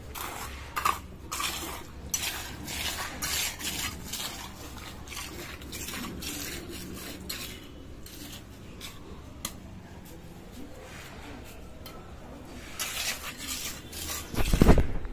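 Steel mason's trowel scraping and slapping over wet concrete as it is spread and smoothed, in a run of short, uneven strokes. A loud low thump comes near the end.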